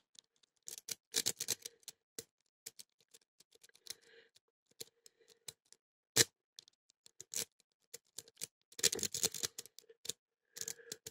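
A pick being raked across the pin tumblers of a mid-1970s BANE padlock held under a tension wrench: irregular small metallic clicks and scrapes, in busier clusters about a second in and near the nine-second mark, with one sharper click around six seconds. The raking does not open the lock.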